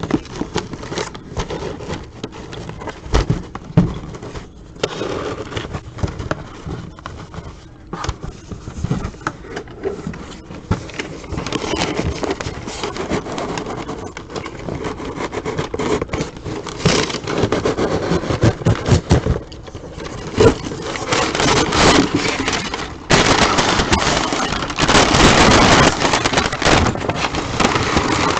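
Plastic packaging crinkling and scraping as it is worked open by hand, with many small crackles, getting denser and louder for the last few seconds.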